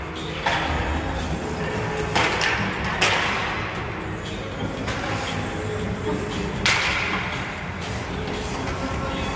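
Roller hockey puck and sticks knocking off the rink boards: several sharp cracks that ring on briefly, the loudest about half a second, two, three and almost seven seconds in, over a steady low hum.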